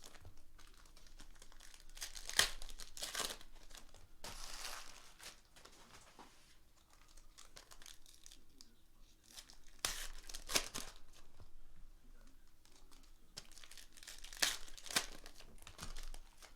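Plastic wrapping and trading-card pack wrappers of a Panini Prizm basketball box being torn open and crinkled, in irregular bursts of tearing and rustling.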